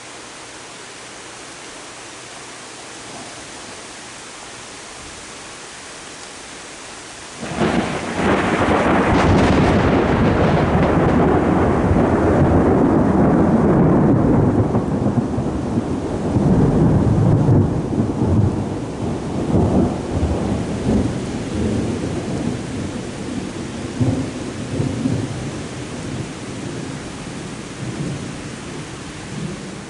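Steady rain hiss, then, about seven seconds in, a sudden loud thunderclap that rolls and rumbles on and slowly dies away.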